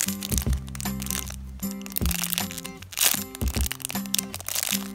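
Background music, with the crackle and crinkle of a clear plastic wrapper being handled over it; the sharpest crackle comes about three seconds in.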